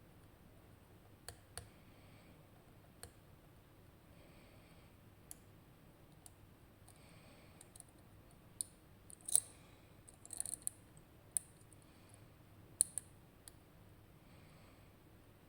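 Sharp, irregular metallic clicks of a lock pick working the spool pins inside a RUKO Garant high-security cylinder while the pick tries to set pin six. The clicks are sparse at first, and the loudest ones come in a cluster in the second half.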